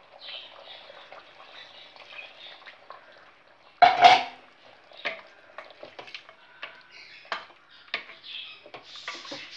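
Wooden ladle stirring coconut milk into mutton curry in a stainless steel pot, knocking against the pot with a string of short taps; one loud clatter about four seconds in.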